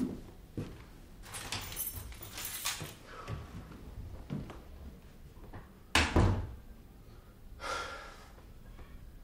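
A door shutting with a thud about six seconds in, the loudest sound, amid softer rustling and shuffling noises.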